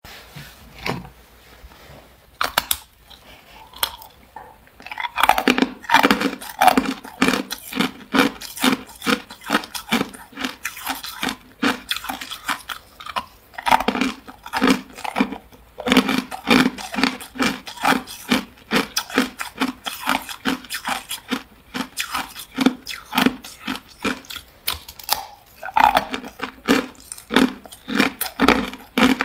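Hard clear ice cubes bitten and chewed close to the mouth: after a few seconds of scattered light clicks, a steady run of sharp crunches, about three a second.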